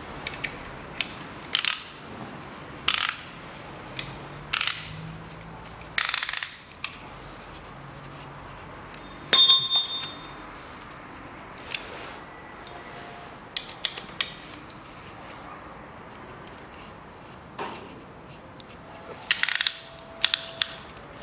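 Irregular metallic clicks and clanks as a piston ring compressor is clamped and tightened around an oiled piston. About nine seconds in, a piece of metal gives a short, clear ringing clink, and a quick cluster of clicks comes near the end.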